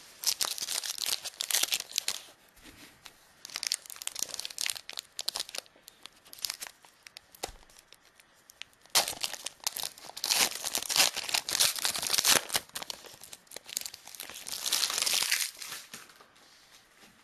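Wrapper of a football trading-card pack being torn open and crinkled, in about four bursts of crackling with quieter gaps between.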